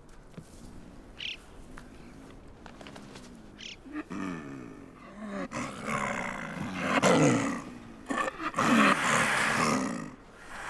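Snow leopards snarling and growling in a series of loud, rough calls that start about four seconds in and grow louder: the aggressive snarling of a female rebuffing a courting male.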